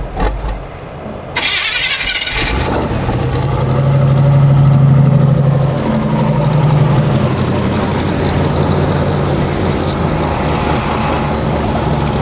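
A 1980 Chevy Blazer K5's engine cranking on the starter for about a second, then catching, revving up briefly and settling into a steady idle.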